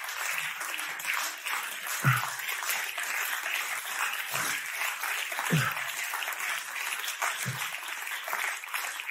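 Audience applauding steadily, with a few scattered voices calling out.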